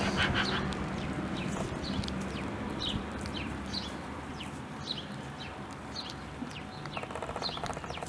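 A tabby cat chewing a vole close to the microphone, with wet chewing and crunching of the vole's skull and bones. Short high chirps repeat in the background about every half second.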